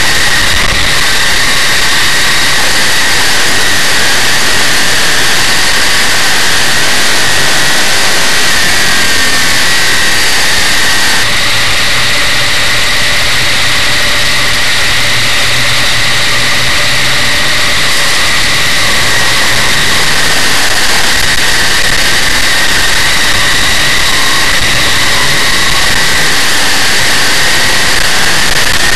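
Dirt modified race car's big-block Chevrolet V8 running hard, heard from an onboard camera, loud and unbroken. For several seconds in the middle the engine settles into a lower, steadier drone, then picks up again.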